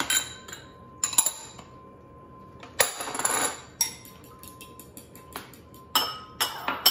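Metal fork clinking against a ceramic bowl while beating eggs into whipping cream. There are a few separate clinks and a short scraping rush near the middle, then a fast steady tapping of about five clinks a second.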